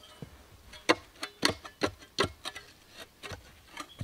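Metal spade blade jabbing into gravelly, stony soil: a run of sharp, uneven strikes and scrapes as it hits stones, a few of them ringing briefly.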